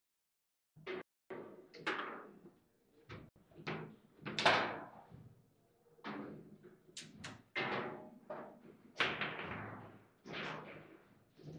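Table football (foosball) in play: a series of irregular sharp knocks and clacks as the ball is struck by the rod figures and the rods are worked, each with a short ringing tail. The loudest hit comes about four and a half seconds in.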